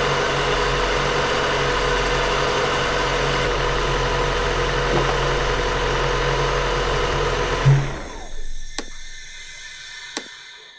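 Mazda MX-5's four-cylinder engine idling steadily on fixed-fire ignition, commanded to 10 degrees before top dead centre but found to be running about 4 or 5 degrees retarded. About three-quarters of the way through it shuts off abruptly, and two sharp clicks follow.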